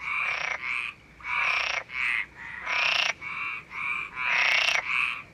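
Frog croaking: a steady run of short, grating croaks, about two a second, longer and shorter calls alternating.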